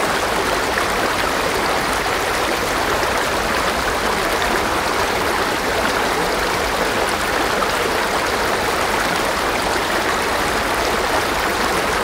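Stream water rushing in a steady, unbroken wash, picked up close by a stereo microphone pair in Rycote baseball wind covers.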